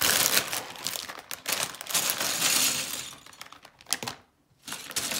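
A plastic LEGO parts bag crinkling as it is pulled open, with small plastic bricks clattering and clicking out onto the table. Both sounds stop briefly a little after four seconds in.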